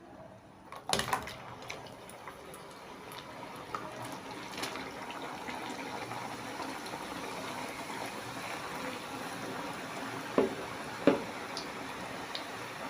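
Chin chin dough pieces deep-frying in hot oil: a steady sizzling that builds up after a loud splash about a second in, as more pieces go into the oil. Two sharp knocks sound near the end.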